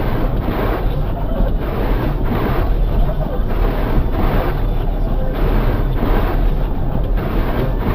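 Blizzard wind blowing over the microphone: loud, steady noise with a heavy low rumble that wavers constantly.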